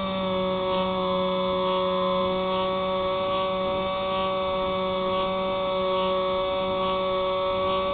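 Steady whine of a Spyhawk RC plane's electric motor and propeller, heard through the onboard FPV camera's audio: several held tones with a slight shift in pitch right at the start.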